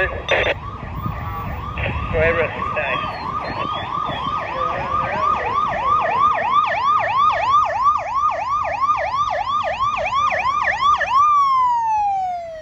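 Siren of an FDNY Special Operations truck approaching on a yelp, its pitch sweeping up and down about three times a second. Near the end it drops into one long falling tone as the siren winds down.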